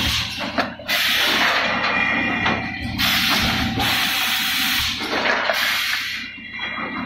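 Automatic 4-cavity PET bottle blowing machine running: loud hissing blasts of high-pressure compressed air, each a second or two long with short breaks between, over a steady low machine hum.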